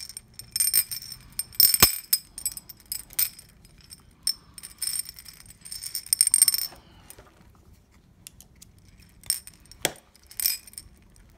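8 mm glass beads sliding off a cut strand into a china saucer, clinking against the porcelain and each other in quick irregular runs. The clinks are dense for the first several seconds, then there is a short lull and a few scattered clinks near the end.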